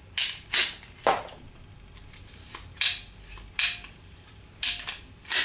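Ratchet pruning shears being worked: about seven sharp metallic clicks and snips at irregular intervals, some in quick pairs, as the handles are squeezed and released.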